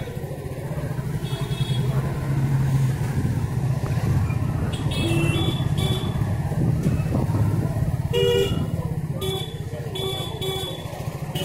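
Motorcycle engine running at low speed, with several short horn toots from about five seconds in.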